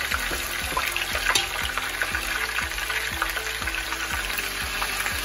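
Pork tocino slices sizzling in a shallow layer of hot liquid in a nonstick frying pan, a steady dense crackle, as more slices are laid in with metal tongs, with a few small clicks.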